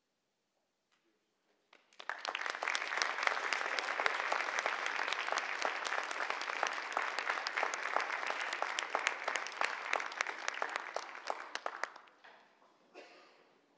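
Audience applauding: after a short silence the clapping breaks out about two seconds in, holds steady, and dies away near the end.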